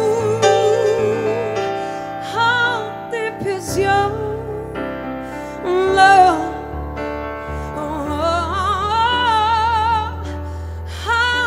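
A woman singing a slow love ballad live, with wide vibrato on long held notes and short breaths between phrases, over keyboard accompaniment.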